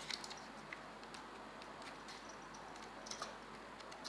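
Faint, scattered light clicks and taps from handling the small plastic and metal parts of an opened computer mouse, as the latch of its ribbon-cable connector is worked loose.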